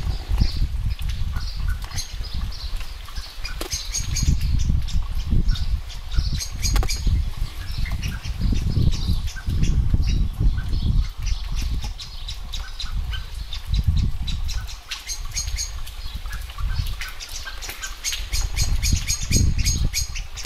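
Outdoor rain ambience: wind buffeting the microphone in uneven gusts, over light rain and scattered short bird chirps.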